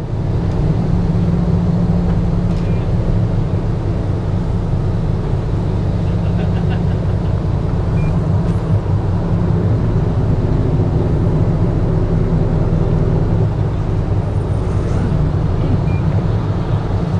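Twin inboard diesel engines of a Sunseeker 76 motor yacht running at idle, a steady low drone.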